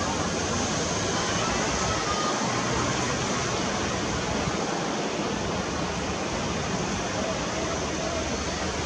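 Steady wind noise rushing across the microphone, with uneven low rumble and no distinct events.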